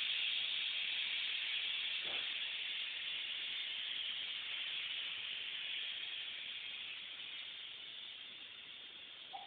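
Steam hissing steadily from a stovetop aluminium pressure cooker in which rice is cooking, fading gradually. A brief knock sounds about two seconds in.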